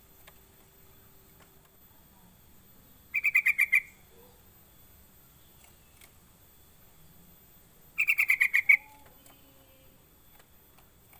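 Yellow-vented bulbul (trucukan) calling: two short bursts of quick bubbling notes, each under a second long, about five seconds apart, with the second burst the louder.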